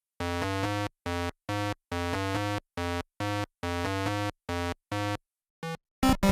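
Synthesizer music: a melody of short, separate notes played at a steady pace, changing near the end to quicker, higher notes.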